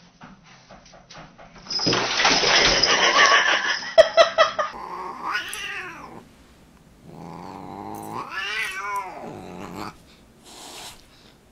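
A loud rushing noise for about three seconds during a cat-and-dog tussle. Then a Siamese cat growls and yowls at a dog: a short wavering yowl, then a longer one of about three seconds that rises and falls in pitch.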